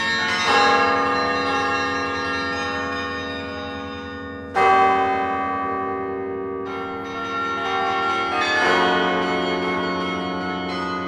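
Rockefeller Chapel's 72-bell carillon played from its baton keyboard: three loud full chords struck about four seconds apart, each ringing on and fading under quieter notes.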